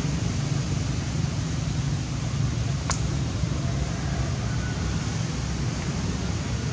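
Steady outdoor background noise, a low rumble with a hiss over it, and one sharp click about three seconds in.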